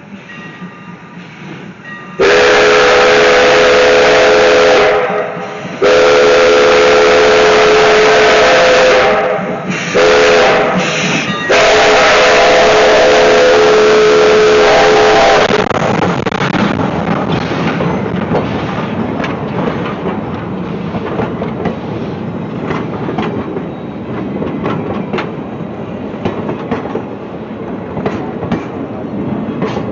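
Steam locomotive #165's whistle blowing four loud blasts, long, long, short, long: the grade-crossing signal. After it the locomotive runs on with a steady rhythmic chuffing and clicking of the train.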